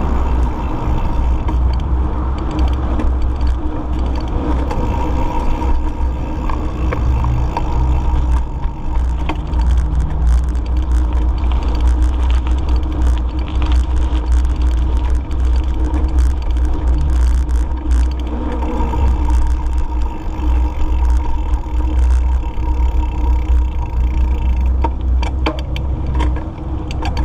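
Wind buffeting the microphone of a camera carried on a moving bicycle, a steady low rumble, with a faint steady hum over it.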